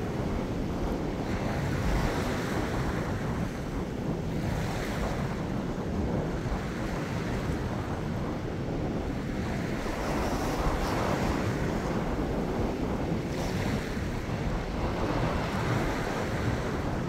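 Small waves lapping and washing over a rocky reef shelf, the surf swelling and falling back every few seconds, with wind buffeting the microphone as a low rumble.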